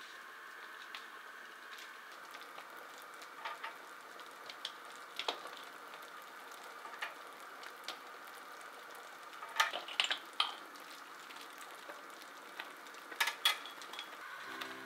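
Strawberry jam simmering in a wok and water boiling in a saucepan on gas burners, a steady bubbling hiss with small pops. About ten seconds in and again near the end come sharp metal clinks of steel tongs against the pot and a stainless-steel tray.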